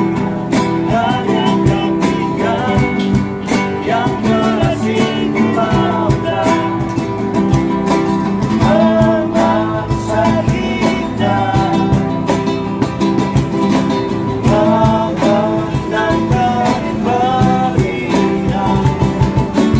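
Live acoustic guitar music, with a gliding melody line played or sung above the strummed chords.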